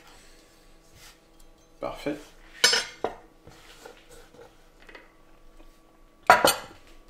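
Kitchenware being handled on a wooden cutting board: a glass baking dish and a metal spoon and knife clinking, with two sharp clinks, one about two and a half seconds in and another near the end.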